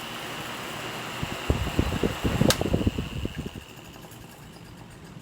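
Repaired stand fan running on its highest speed (3) with a steady whirring, newly fitted with a 1.5 µF capacitor and new front and rear bushings. Irregular low thumps come through the middle, with a sharp click about halfway, and then the fan noise drops off and fades.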